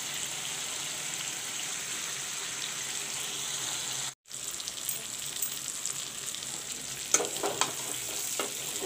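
Marinated chicken pieces sizzling steadily in hot oil in a metal kadai. The sound drops out for a moment about four seconds in. From about seven seconds a metal spatula scrapes and knocks against the pan as the chicken is turned.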